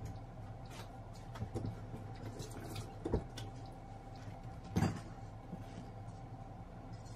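Light kitchen clatter over a steady low hum: a few small clicks, a sharp knock about three seconds in, and the loudest, a heavier clunk just before five seconds, as a tray of toast is set down on a wooden cutting board.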